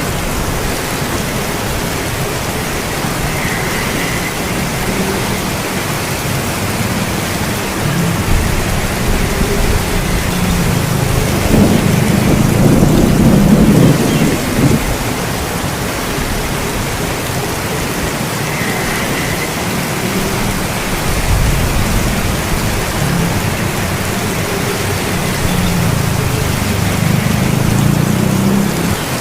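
Steady heavy rain with rolls of thunder, the loudest swelling in about halfway through.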